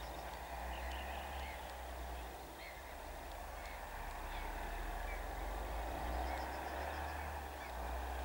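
Heavy diesel truck engine running steadily, a low hum under a rushing noise, with short high chirps repeating about every half second to a second.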